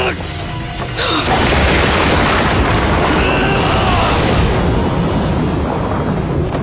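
A loud explosion-like boom sound effect that hits about a second in and rolls on for several seconds, over a dramatic music score.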